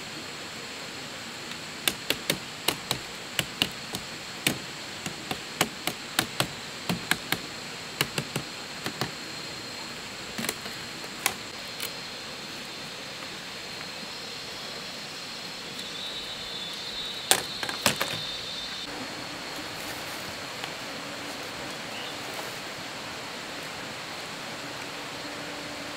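Split bamboo strips clicking and knocking against each other as they are handled and woven into a lattice panel: a run of sharp clicks, about two a second, for the first half, then two louder knocks a little past the middle. A steady high insect drone runs underneath.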